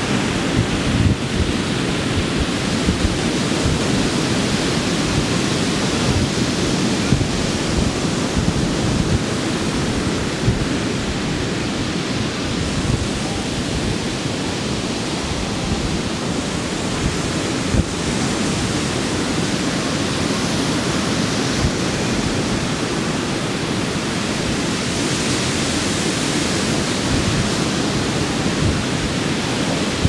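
Ocean surf breaking and washing up a sandy beach, a steady rush of waves that swells a little near the end, with wind buffeting the microphone.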